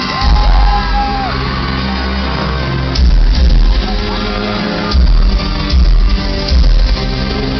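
Loud live dance-pop music through an arena PA with heavy bass hits, and fans screaming over it in the first second or so.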